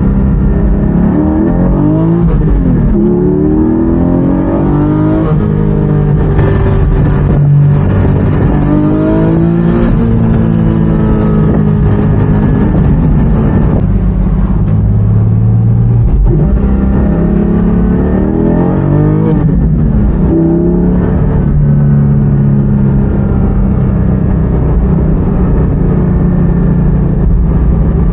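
2020 Porsche 718 Spyder's 4.0-litre flat-six exhaust under hard acceleration, revs climbing and falling back at gear changes several times, with steadier running between the pulls.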